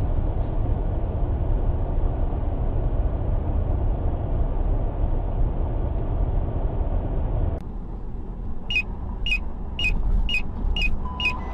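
Steady low rumble of a car driving, heard from inside through a dashcam. After a cut, about eight seconds in, a regular ticking starts at about two ticks a second, typical of a car's turn-signal indicator.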